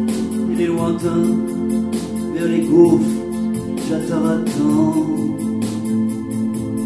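Live keyboard music: an electronic keyboard with an organ-like sound over a steady, fast tick of percussion, with a man singing over it.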